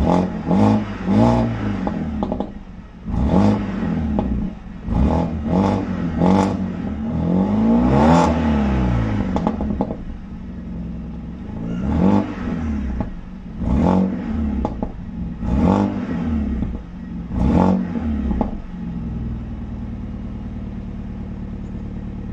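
BMW E91 320i four-cylinder petrol engine, its exhaust resonator deleted, free-revving in a series of short throttle blips with one longer rev in the middle, then settling to a steady idle near the end.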